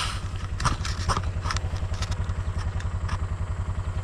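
Kawasaki Mule 610 utility vehicle's single-cylinder engine idling with an even low pulse. A few brief clicks sound over it in the first second and a half and again near the end.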